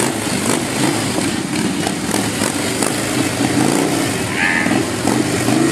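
Several Harley-Davidson V-twin motorcycle engines running near idle as the bikes creep along at a crawl, a steady low rumble.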